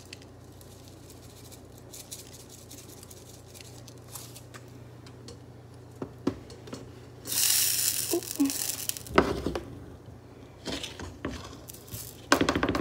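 Seasoning being added to potatoes in a frying pan, with light clicks and taps of bottles and a utensil against the pan over a faint steady hum. A louder rasping hiss comes a little past halfway, then a thump, and a burst of clatter near the end.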